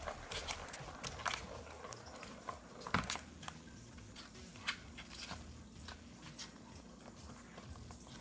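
Irregular clicks and knocks of a kitten playing with a Catit plastic race-track cat toy, with the loudest knock about three seconds in.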